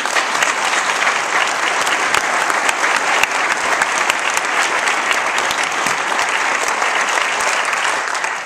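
Audience applauding: dense, steady clapping of many hands, close and loud.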